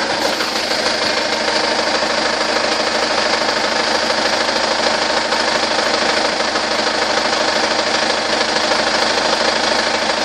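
Hyundai Grand Starex engine running steadily at idle with a knocking sound, the engine knock that the owner is recording.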